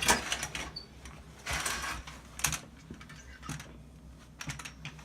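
Toilet auger being retracted, its cable sliding back into the tube with the handle and housing clattering: short rattling scrapes and a few sharp clicks, with a longer scrape about a second and a half in.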